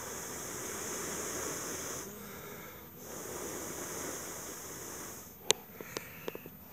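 Two long breaths blown onto a comb of honey bees to move them off the cells, each a steady hiss lasting about two seconds. A sharp click comes about five and a half seconds in, followed by a few small knocks from handling the frame.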